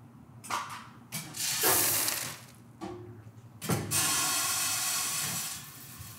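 Coffee weigh-and-fill machine running a fill cycle: a knock, then two stretches of rushing hiss as coffee is fed into the bag, the second lasting about two seconds.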